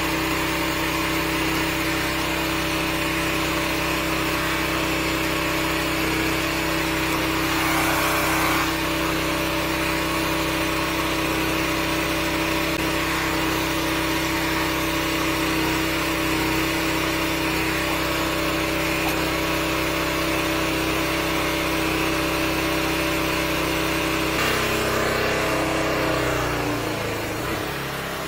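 A 13-horsepower high-pressure drain jetter's engine runs steadily under load, driving water through the hose and turbo drill nozzle into a blocked drain line. Near the end its pitch slides down as it slows.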